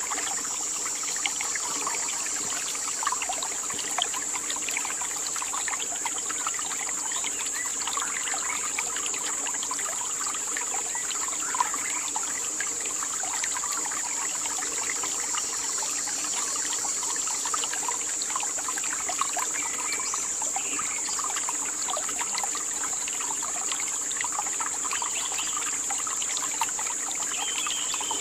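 Forest ambience: a steady high-pitched insect drone over a constant fine crackle of small ticks, with a faint low steady hum underneath.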